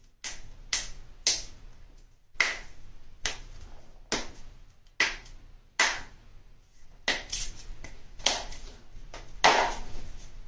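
Joints cracking: a run of about a dozen sharp pops, roughly one a second, some louder than others.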